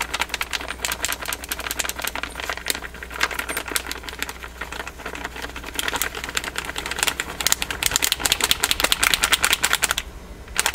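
Clear plastic bag crinkling and crackling in rapid, irregular clicks as it is shaken and squeezed to shake powdered rose kaolin clay out into a bowl, getting busier in the second half and stopping briefly near the end.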